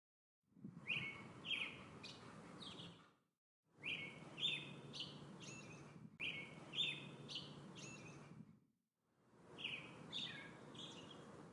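Birds calling: a few short, falling chirps at a time over a steady outdoor hiss. The sound comes in segments that fade in and out, with brief silences between.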